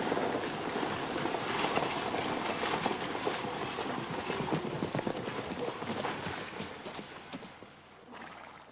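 A team of horses pulling a stagecoach, their hooves clip-clopping quickly on the street, dying away near the end as the coach pulls up.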